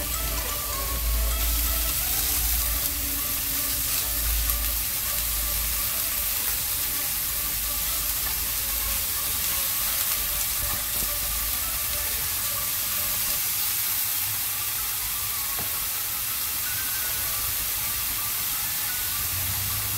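Diced smoked bacon sizzling steadily in a nonstick frying pan, stirred with a silicone spatula partway through.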